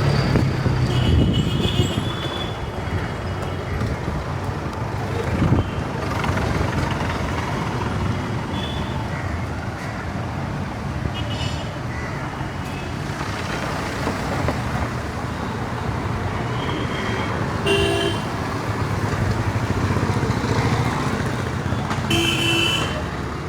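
Busy street traffic: a steady rumble of engines with vehicle horns tooting several times, briefly each, and faint voices of a crowd in the mix.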